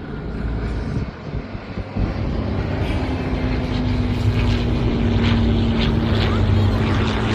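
Aircraft engine at an airshow passing overhead, its rushing noise growing steadily louder, with a steady engine tone coming in about three seconds in.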